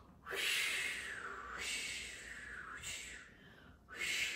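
A woman making whooshing wind sounds with her mouth to imitate a swirling snowstorm: three breathy gusts in a row, each sweeping down and back up in pitch.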